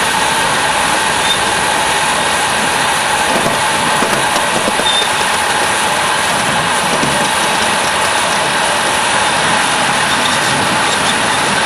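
Ride-on live steam locomotive running along a miniature railway, heard from aboard: a steady, dense mechanical rattle of wheels on rail and running gear.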